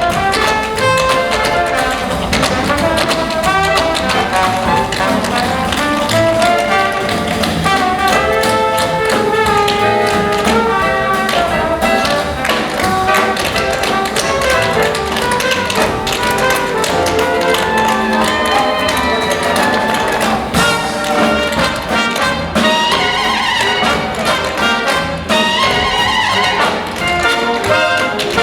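Tap dancing: rapid, dense tap-shoe strikes over a jazz big band playing with brass.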